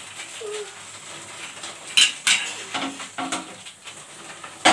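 Metal cookware clanking on a gas stovetop as pans are moved and the spill is wiped, with sharp clanks about two seconds in and again near the end.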